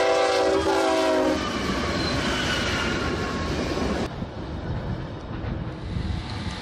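Freight train's locomotive horn sounding one steady multi-note blast that stops about a second in, followed by a steady low rumble that eases off toward the end.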